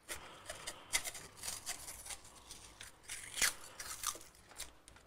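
Irregular crackling and light clicks of close-up hand handling while a fishing rod is tied down in a rod-building machine, with sharper clicks about one, three and a half and four and a half seconds in.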